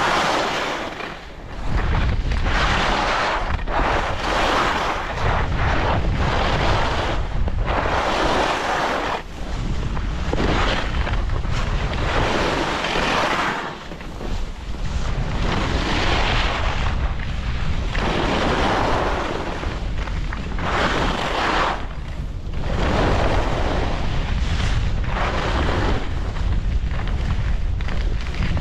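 Wind buffeting the microphone on a downhill ski run, with the hiss of skis scraping over artificial snow swelling and fading every second or two as the skier turns.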